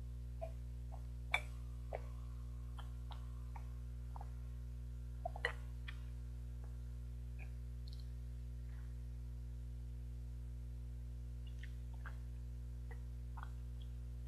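Small gulps and mouth clicks of someone drinking from a bottle, over a steady low electrical hum. The sharpest clicks come about a second and a half in and again about five and a half seconds in.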